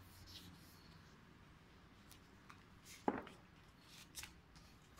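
Pages of a paperback book being handled and turned: faint paper rustles, with one sharper flick of a page about three seconds in.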